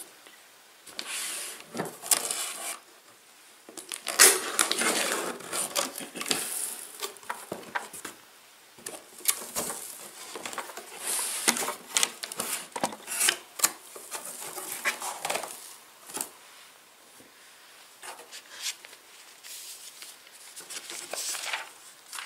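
Cardboard packaging being handled as a pressure washer's shipping box is opened, with irregular bursts of scraping, rustling and small knocks as flaps, inner boxes and papers are moved.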